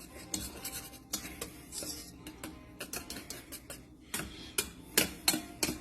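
A mixing utensil clicking and tapping irregularly against a bowl while vinegar is stirred into sweetened condensed milk to make donair sauce, with sharper, louder taps in the last couple of seconds.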